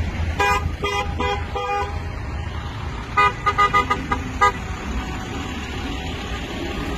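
Car horns in a slow-moving protest convoy honking in short beeps: about four in the first two seconds, then a quicker, louder run of five or six toots around three to four and a half seconds in. A steady low rumble of idling traffic runs underneath.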